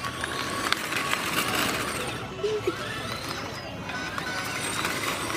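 Music playing over a busy, noisy background hubbub.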